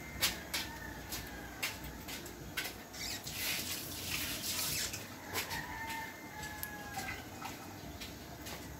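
A rooster crowing faintly twice, one crow ending just after the start and a longer, slightly falling one about six seconds in, over scattered clicks and knocks of kitchen work and a brief hiss in the middle.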